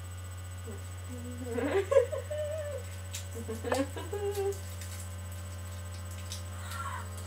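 A person's wordless voice humming a few wavering notes, twice, over a steady electrical mains hum.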